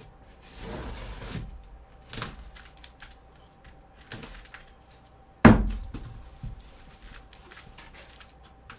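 Cardboard shipping case being handled and opened: a scraping rasp about a second in, a few light knocks, then a loud thump of cardboard about halfway through.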